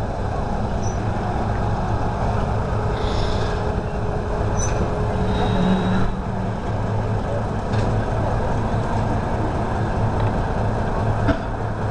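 Steady low engine rumble from locomotives being turned on a railway turntable, with a few brief faint metallic squeaks.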